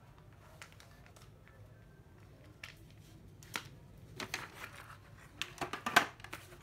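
Hands picking up and moving a plastic battery charger and its cord on a cardboard-covered table. It makes scattered knocks and rustles, which grow busier toward the end, with the loudest knock about six seconds in.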